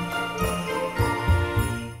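Background music with jingle bells over a steady beat, fading out at the very end.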